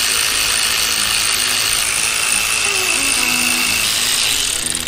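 Handheld power ratchet running without a break, a loud steady hiss with a faint whine, spinning out a bolt on the cylinder head of a Kohler CH25 twin-cylinder engine; it cuts off near the end.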